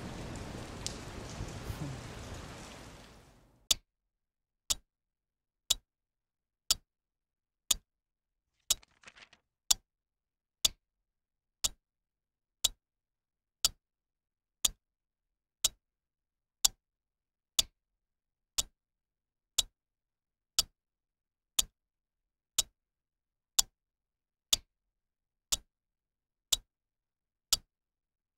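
Rain fades out over the first few seconds, then a clock ticks steadily, about once a second.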